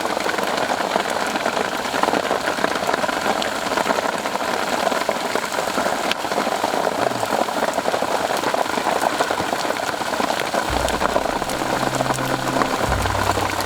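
Steady rain falling, an even dense hiss of drops with no let-up.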